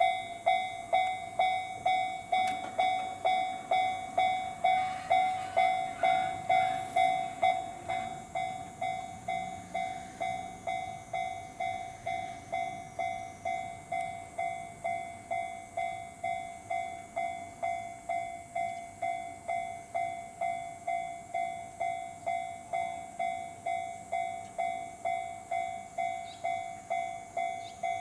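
Japanese railway level-crossing warning bell ringing, an evenly repeating electronic clang about twice a second. About eight seconds in it drops noticeably in volume and keeps ringing at the lower level.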